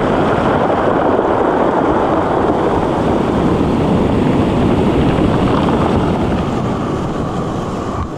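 Ocean surf washing and breaking along the shore, with wind buffeting the microphone: a loud, steady rush that eases slightly near the end.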